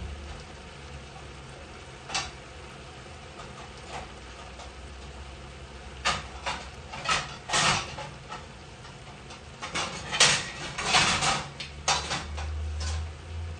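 Pots and pans being handled: scattered clanks and knocks, coming thicker from about six seconds in, over a steady low hum.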